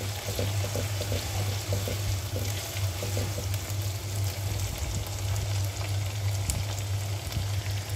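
Sliced onions and garlic-ginger paste frying in hot oil in a nonstick wok, sizzling steadily, with a spatula stirring through them now and then. A steady low hum runs underneath.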